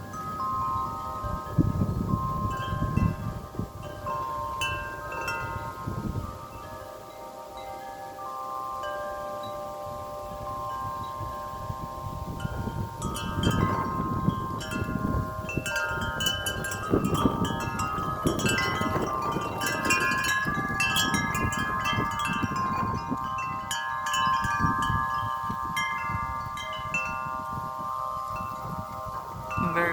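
Metal wind chimes ringing in strong, gusty wind. Many tubes sound overlapping, sustained tones, and the chiming grows busier about halfway through. Wind gusts buffet the microphone in low rumbling bursts.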